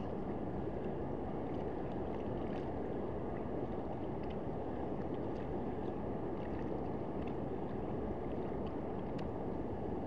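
Steady rushing outdoor noise of a flowing trout stream, with wind rumbling on the microphone.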